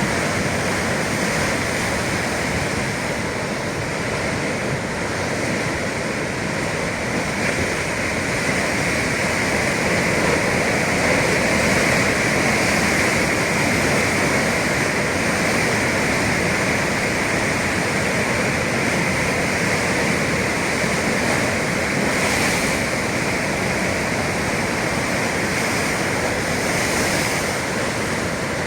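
Atlantic Ocean waves surging and breaking in a continuous, steady wash of surf, swelling slightly about halfway through.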